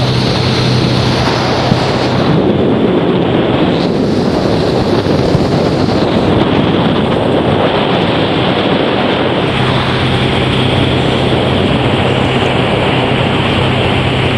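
Motorboat under way: a steady engine hum under heavy wind buffeting on the microphone and rushing water. The engine hum fades for several seconds in the middle, then comes back.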